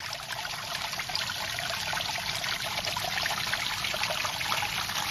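Water spilling through a miniature dam's paddle-wheel turbines and splashing into a shallow pool: a steady trickling, splashing flow.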